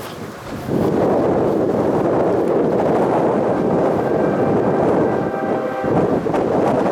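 CSX freight train running past, mixed with wind buffeting the microphone. The loud rush comes in suddenly about a second in and drops away right at the end.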